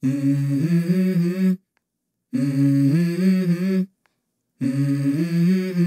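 Music: a low voice humming a short phrase of held notes that steps up in pitch, three times over with short silences between, the unaccompanied opening of a song.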